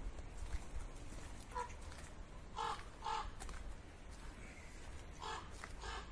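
Crow cawing: a faint call, then two pairs of short caws a couple of seconds apart.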